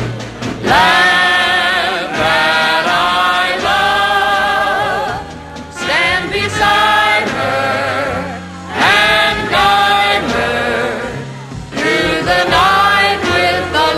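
Choir singing a slow song with instrumental backing, long notes held with vibrato, the phrases broken by short pauses.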